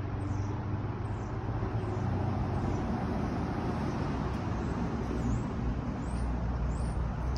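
Steady outdoor background of distant road traffic, with a low rumble that grows near the end.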